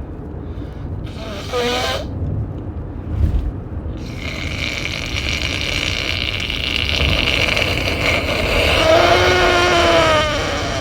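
A person forcefully blowing a badly congested, allergy-stuffed nose: one long blow of about six seconds that starts about four seconds in and ends in a wavering honk. A short voiced sound comes shortly before it.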